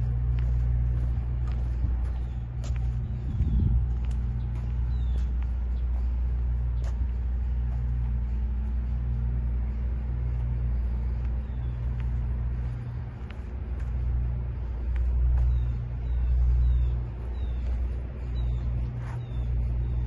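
A steady low rumble with a hum under it, swelling and easing every second or two, over which come a few short, high, falling chirps, mostly in the second half.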